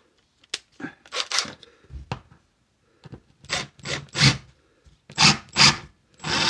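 Handling noises: a string of short rubbing and scraping sounds as a deck screw and a hex impact driver are fitted together and set against wood, with several loud scrapes in the second half.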